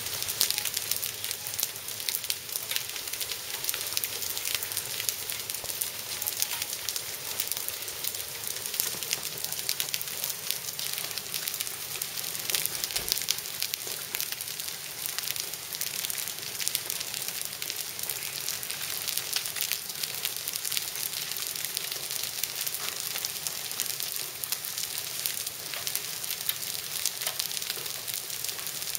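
Hail 2 to 3 cm across falling with rain onto wet terracotta tiles and paving: a steady dense hiss of rain, peppered throughout with sharp ticks of hailstones striking.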